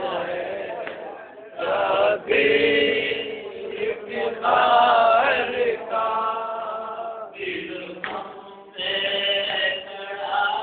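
Male voices chanting a noha, a Shia mourning lament, in sung phrases of one to two seconds with short breaks between them.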